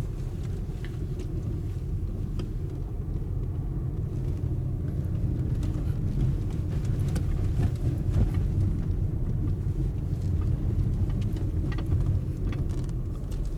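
Car driving along a village road, heard from inside the cabin: a steady low rumble of engine and tyres, with scattered light knocks and rattles.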